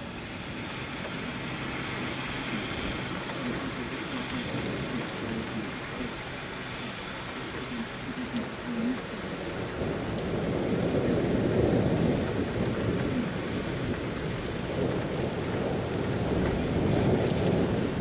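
Steady rain splattering on wet pavement, with a long rumble of thunder that swells up about ten seconds in and rolls on.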